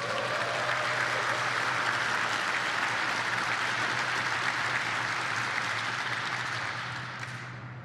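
Audience applauding, steady for about six seconds, then dying away near the end.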